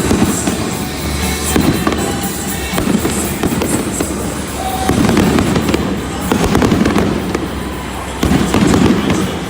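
Fireworks booming and crackling in repeated bursts, with music playing underneath.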